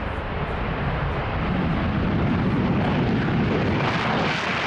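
Jet engines of a B-1B Lancer bomber at full power on takeoff: a steady, dense jet noise with a deep rumble underneath, the hiss growing a little near the end.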